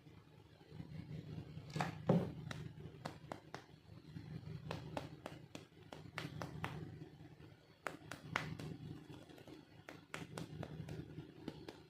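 Small plastic toy pieces being handled: irregular light clicks and taps, the loudest about two seconds in, over a steady low hum.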